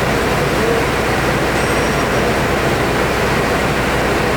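CNC nesting router running steadily: an even rushing noise over a low hum.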